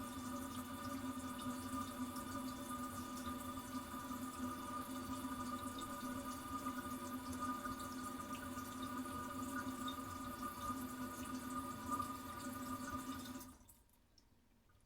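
Toilet tank refilling: water running through the fill valve with a steady hum of several held tones, which stops about 13.5 seconds in as the tank fills and the valve shuts off.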